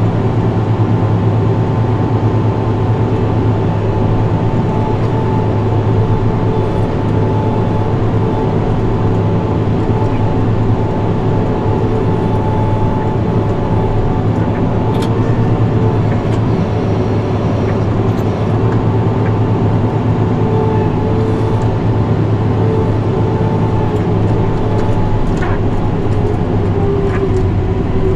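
New Holland tractor's engine running steadily under load, driving a front-mounted snowblower as it throws snow, heard from inside the cab: a continuous low drone with a steady higher whine over it.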